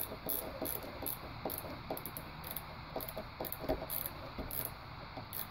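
Small irregular clicks and scratchy ticks, a few a second, from handling a DC-to-DC converter circuit board while stripped wires are fitted into its screw terminal block.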